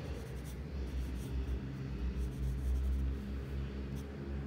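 Pencil lead scratching across paper in short shading strokes, over a steady low rumble.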